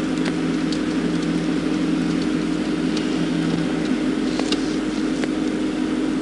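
Steady low hum of an idling vehicle engine, with a few faint ticks over it.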